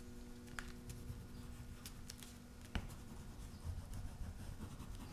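Neocolor II water-soluble wax pastel scribbling and rubbing on painted watercolor paper: faint scratchy strokes with a few light taps, the sharpest just past halfway. A low steady hum underneath stops at that tap.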